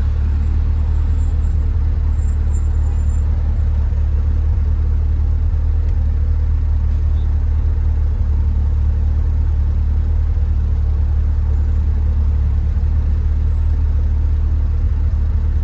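Tofaş Şahin with an SS Magnum aftermarket exhaust cruising at steady throttle, heard from inside the cabin: a low, even exhaust drone with road noise.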